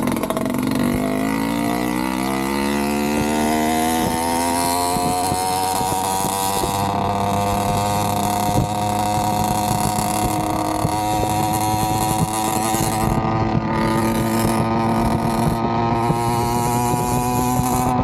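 Avenger 85 two-stroke motorized-bicycle engine, breathing through a Nibbi PE19 carburetor and a Gomax expansion-chamber exhaust, pulling up through the revs over the first few seconds and then holding a steady high drone at cruising speed.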